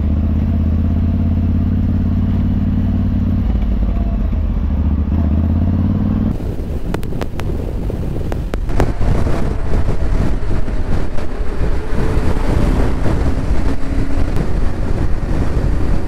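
Yamaha Ténéré 700 parallel-twin motorcycle engine running at a steady pitch; about six seconds in, this changes abruptly to the sound of riding on the open road, with wind buffeting the microphone over the engine.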